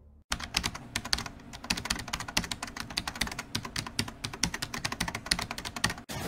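Computer keyboard typing sound effect: a rapid, uneven run of key clicks that starts just after the beginning and cuts off abruptly near the end.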